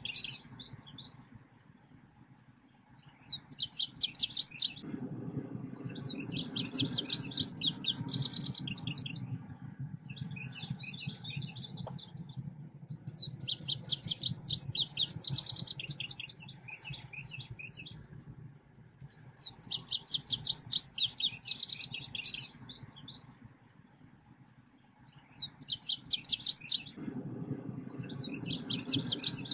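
Song of the selendang biru bird, played as a lure and tutoring call for birds: repeated bursts of rapid, high-pitched chirping trills, each phrase a second or two long with short pauses between. A low steady hum sits underneath for long stretches.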